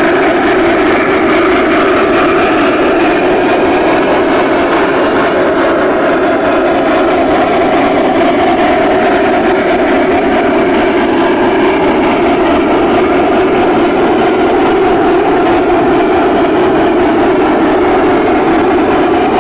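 Large-scale model train running on the layout: a loud, steady rumbling running noise with no breaks.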